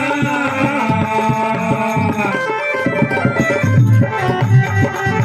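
Instrumental interlude of a Rajasthani (Marwari) devotional bhajan: held melody notes over hand-drum beats between sung lines.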